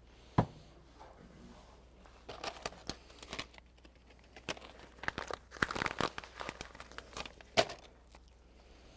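Plastic being handled: a sharp click, then several seconds of irregular crinkling and rustling with light clicks and knocks, and another sharp click near the end.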